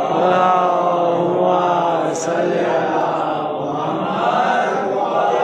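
A man's voice chanting in long drawn-out notes, the pitch sliding slowly up and down.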